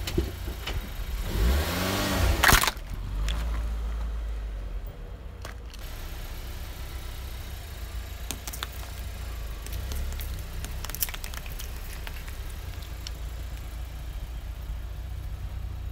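Car engine running with a steady low rumble. About a second in it revs up and back down in a loud surge that cuts off abruptly. Later come a few faint clicks as a tyre rolls over and crushes a row of tomatoes.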